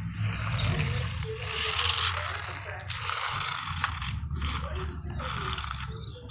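Toy remote-control car's small electric motor and gears whirring in stop-start spurts as it is driven.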